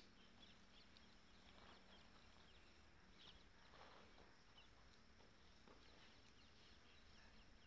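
Near silence: faint outdoor background with scattered faint ticks and chirps.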